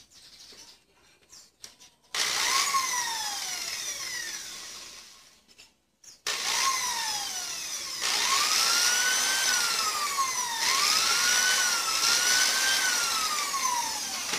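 Corded electric drill run in bursts: the motor whine climbs in pitch as it speeds up and sinks as it spins down. Two short runs come first, then from about eight seconds a longer run whose pitch rises, dips and rises again before winding down near the end.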